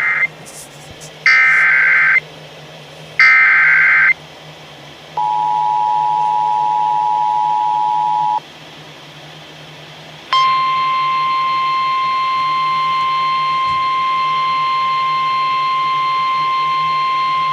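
Emergency Alert System broadcast tones: the end of the first and then two more of the three screeching SAME header data bursts, each about a second long; then the two-tone EAS attention signal held for about three seconds; then, after a short pause, the steady single-pitch NOAA Weather Radio warning alarm tone, which begins about ten seconds in. This sequence is the start of a severe thunderstorm warning being relayed over AM/FM radio, with a faint hum underneath.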